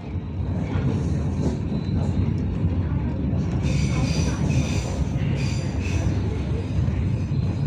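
A passenger train running along the track, heard from inside the carriage as a steady low rumble. A high-pitched wheel squeal cuts in twice near the middle.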